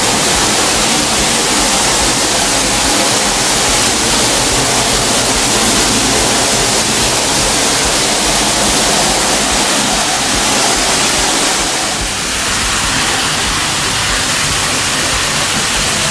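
Water gushing from a broken pipe, a steady loud rushing spray that eases slightly about twelve seconds in.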